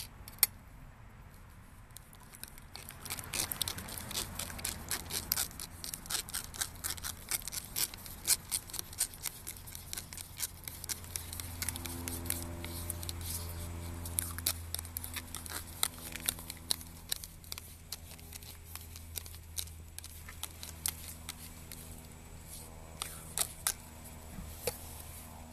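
Metal teaspoon stirring thick yogurt in a plastic cup: quick, irregular clicks and scrapes of the spoon against the cup's sides, thinning out near the end. A faint low hum runs underneath.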